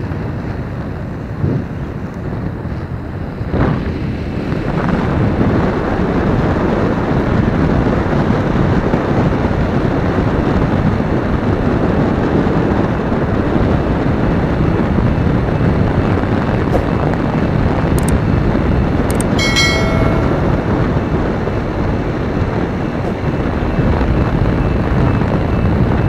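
A motorcycle being ridden along a road, its running noise mixed with wind rushing over the microphone in a steady dense roar. About twenty seconds in there is a brief high-pitched sound.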